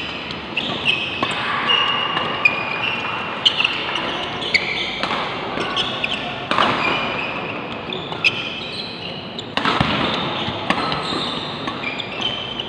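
Badminton doubles rally: a string of sharp racket hits on the shuttlecock, about one every second or so, mixed with short high squeaks of shoe soles on the court floor.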